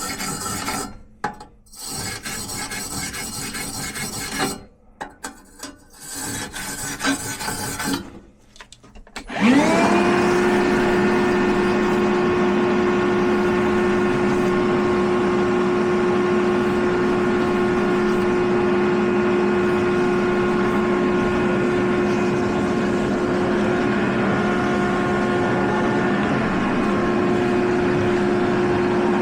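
Short bursts of scraping and rubbing. About nine and a half seconds in, an electric motor spins up with a quickly rising whine, then runs on with a steady hum.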